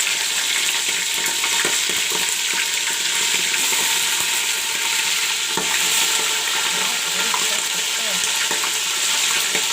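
Raw chicken pieces frying in hot mustard oil in a pan, a steady loud sizzle, with occasional light scrapes of a spoon stirring.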